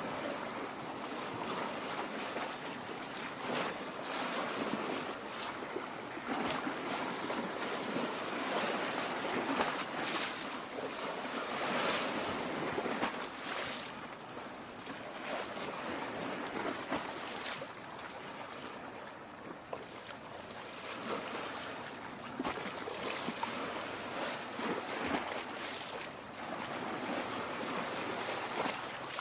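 Lake water lapping and splashing at the shore, rising and falling in uneven swells every few seconds.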